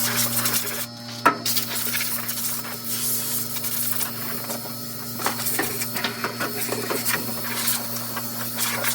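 Old Whirlpool-built Kenmore electric clothes dryer running on a freshly fitted drive belt: a steady motor hum under the rush of the turning drum, with a sharp knock about a second in.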